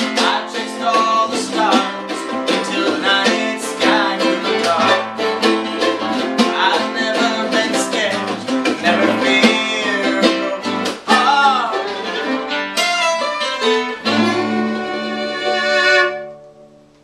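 Bluegrass string band playing an instrumental passage: fiddle lead with pitch slides over archtop guitar and banjo. The tune ends on a final chord that rings and dies away near the end.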